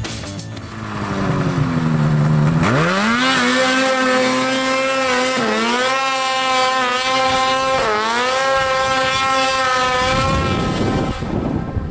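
RKTek 827 big-bore two-stroke snowmobile engine with a Jaws can exhaust, revving up hard under full throttle climbing a hill. The pitch rises sharply a few seconds in and holds high, with two brief dips, then falls away near the end.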